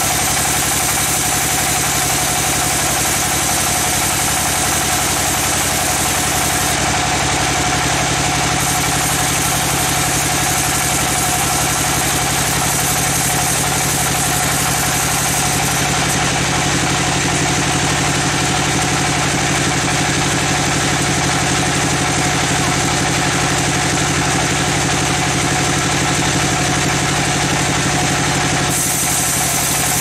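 Band sawmill running steadily, its band-saw blade cutting lengthwise through a log, over the constant drone of the mill's drive.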